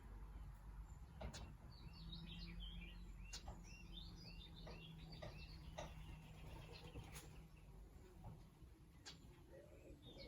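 A fledgling bird sneezing several times, each sneeze short and sharp, with a run of faint, high little chirps in the first half.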